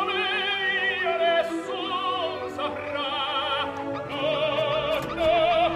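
Operatic singing with a wide, wavering vibrato on long held notes, over an orchestral accompaniment.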